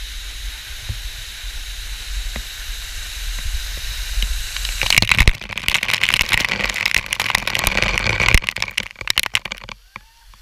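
Steady rush of a waterfall. About five seconds in, the falling water starts pelting directly on the camera, a loud crackling spatter that cuts off suddenly about a second before the end.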